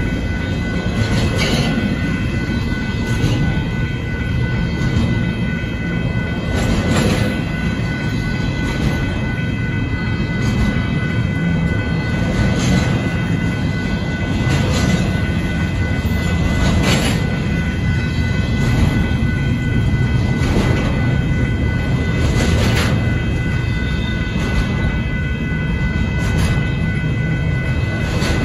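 Union Pacific double-stack intermodal freight train rolling through a grade crossing: a steady rumble of wheels on rail with a clack every couple of seconds. The crossing bell rings steadily underneath.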